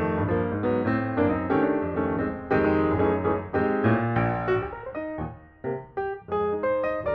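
Background piano music, a light melody of quick, clearly separate notes.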